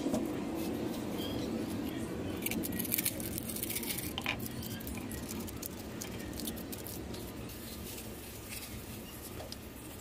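Small scattered clicks, taps and rustles of hands handling plastic bottle pieces on a plywood board, busiest a few seconds in, over a steady low background noise.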